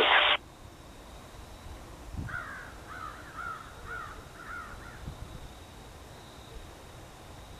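A bird calling outdoors: a run of about seven short calls, starting about two seconds in and lasting some three seconds.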